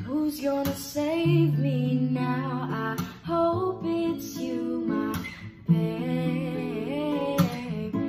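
Background music: a strummed acoustic guitar with a voice singing the melody.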